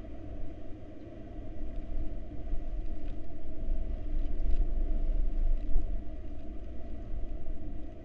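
Tropical-storm wind buffeting the wooden nest box and its microphone: a continuous low rumble that swells for a few seconds in the middle, then eases.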